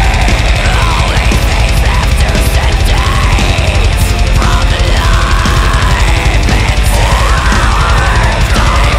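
Heavy metal band playing at full volume: distorted guitars, bass and drums with a heavy, steady low end, and a high line bending up and down in pitch over it.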